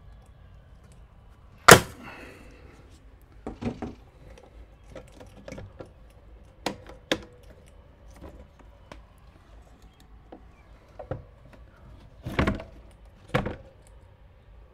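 Scattered knocks and clunks as the metal arm and bracket of an automatic vent opener are handled and set against a plywood wall. The loudest is a sharp knock about two seconds in, and a pair of knocks comes near the end.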